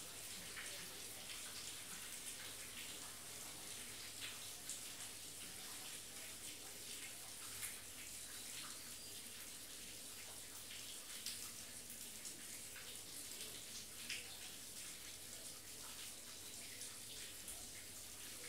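Faint steady rain: a soft hiss with scattered small ticks of drops.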